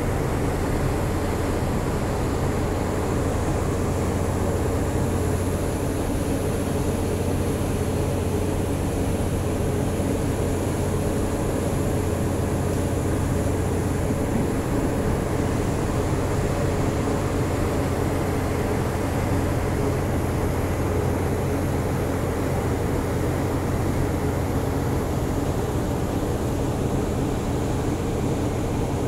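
Ship's engine and machinery running, a steady low drone with a strong hum and a faint high hiss above it.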